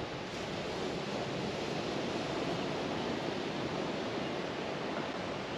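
Steady wash of ocean surf breaking on a nearby beach, an even rushing noise with no distinct events.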